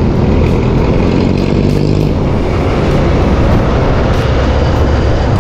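Motorcycle engine running steadily with road noise while riding, loud and even throughout.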